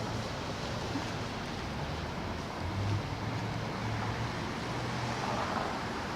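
Street traffic: a steady hiss of passing cars with a low engine hum underneath.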